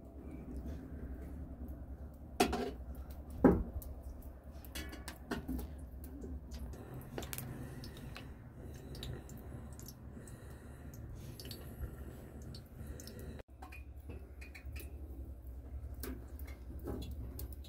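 Scattered clinks and knocks of pots and utensils being handled, two of them louder a few seconds in, over a low steady hum.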